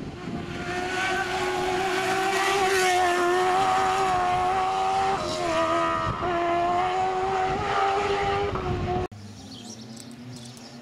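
Sports prototype race car's engine at high revs, growing louder as it approaches and holding a high steady pitch with two brief dips. It cuts off suddenly about 9 seconds in, giving way to a quieter, lower engine sound of another car.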